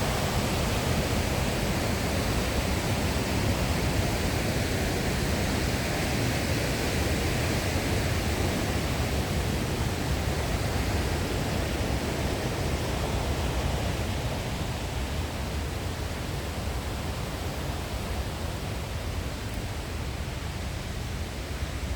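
River water rushing in a steady roar, easing a little in loudness over the second half.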